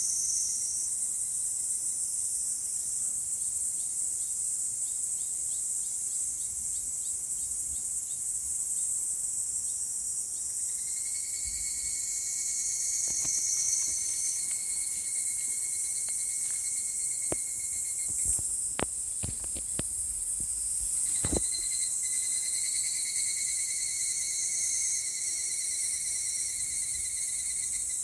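Cicadas buzzing in a dense, continuous high chorus. A steadier, lower-pitched drone from another cicada joins about 11 seconds in, breaks off, and returns a little after 20 seconds. A few sharp clicks or knocks come in between.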